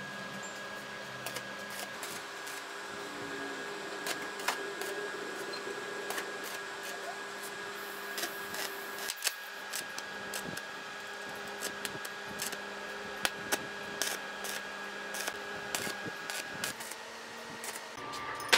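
Steady hum with a high whine from a running inverter arc welder, with scattered sharp clicks of metal throughout.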